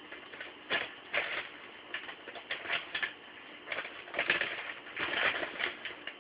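A pet dog fussing, making a run of short, irregular whines and grumbles, busiest about two-thirds of the way in.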